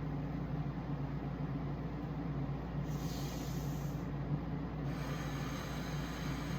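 Steady low mechanical hum, like a fan or appliance, with a short breathy hiss about three seconds in.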